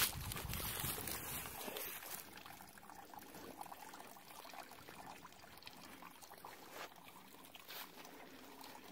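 Faint, steady trickle of water running at the mouths of corrugated metal culvert pipes, with a louder rustle over the first two seconds.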